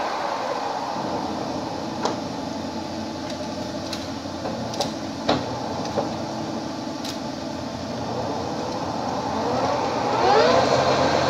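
Summit 25 engine lathe running with its power cross feed engaged, a steady mechanical hum of gearing with a few sharp clicks. Near the end a rising whine comes in and grows louder.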